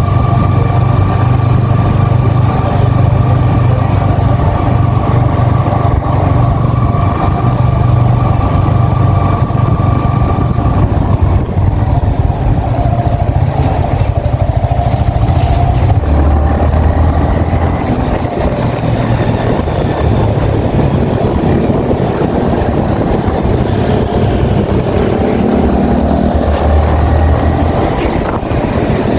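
Yamaha XSR 155's single-cylinder engine running under way, heard from the bike. The engine note dips lower in pitch about halfway through and again near the end, as the throttle changes.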